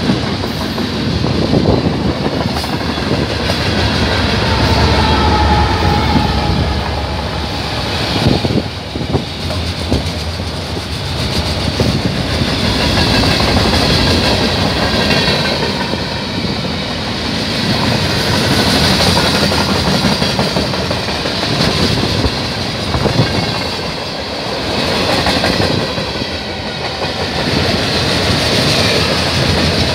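Long mixed freight train passing at speed: a steady rumble and rhythmic clatter of steel wheels on rail joints as tank cars, autoracks and boxcars roll by, swelling and easing slightly as the cars pass.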